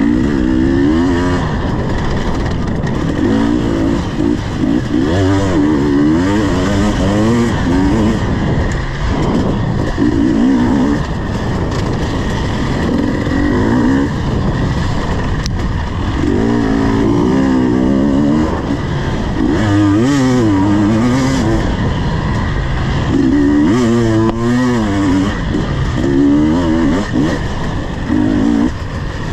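KTM 250 EXC two-stroke enduro motorcycle engine being ridden hard, its pitch rising and falling again and again as the throttle is opened and shut, over a steady rushing noise.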